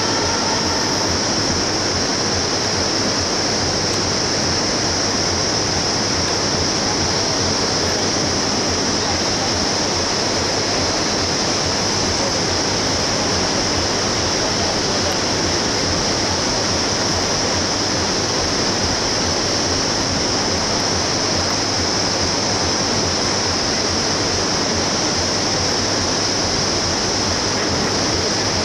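Whitewater river rapids rushing steadily, an even roar of water with a constant high hiss over it.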